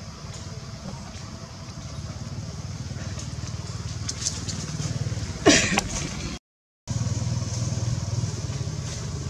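A steady low engine-like rumble runs under the scene. About five and a half seconds in comes one short, loud cry sliding down in pitch from a baby monkey, and just after it the sound cuts out completely for about half a second.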